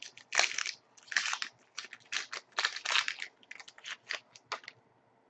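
Trading cards and their pack wrapper being handled: a quick series of short rustles and scrapes as cards slide against one another, stopping shortly before the end.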